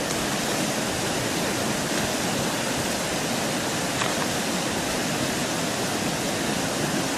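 River water rushing over stones in a steady, unbroken wash.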